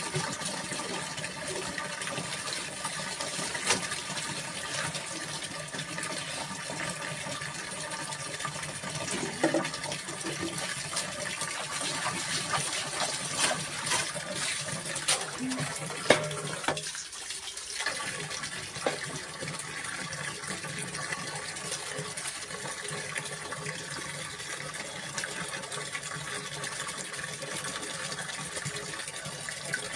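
Water running and splashing steadily as buckets are filled and a steel pot is dipped and poured, with a few short sharp knocks scattered through.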